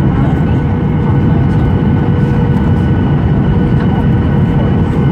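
Steady cabin roar of a Boeing 737 in flight, heard from a window seat over the wing: the CFM56 turbofan engines and rushing airflow, with a few steady whining tones above the deep roar.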